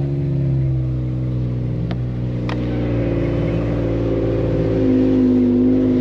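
Vehicle engine running steadily under load, heard from inside the cab while towing a pickup truck up a snowy track. The engine note steps down about five seconds in, and there are two light clicks around two seconds in.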